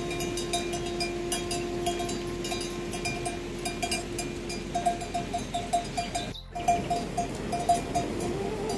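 Livestock bells clinking irregularly, with a long steady pitched note underneath for about the first five seconds. There is a brief drop-out about six and a half seconds in.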